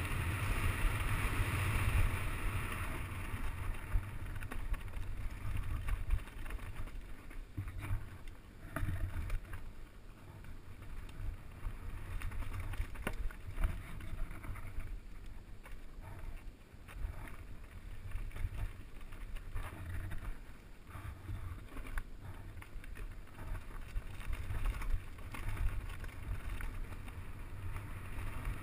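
Mountain bike descending a rocky dirt singletrack: a steady low rumble of wind on the action camera's microphone and tyres on the dirt, broken by frequent knocks and rattles as the bike hits bumps, with a louder hiss in the first few seconds.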